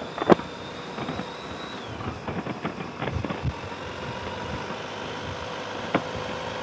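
Motorcycle engine running at a steady pitch, with a few short knocks scattered through it, the sharpest just after the start and another near the end.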